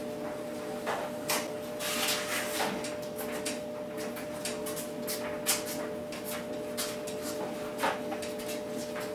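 Irregular clicks, knocks and light clatter of hand tools and parts being handled while a dirt bike is taken apart, over a steady low hum.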